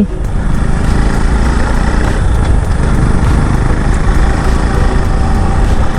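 Motorcycle running while being ridden: a steady engine sound under a dense low rumble.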